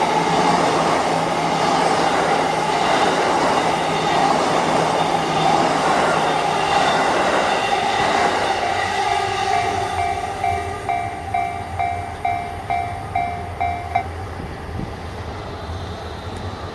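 JR Yamanote Line E235-series electric train passing over a level crossing, a dense rush of wheel and rail noise. As the train clears, the crossing's warning bell is heard ringing about twice a second, then stops, leaving a low rumble.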